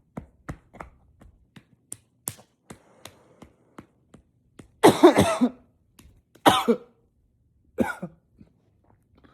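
A man's coughing fit, stifled into a pillow. A string of short, quiet coughs comes in quick succession over the first three seconds. Then a long, loud, harsh burst of coughing about five seconds in, and two more single loud coughs about a second and a half apart near the end.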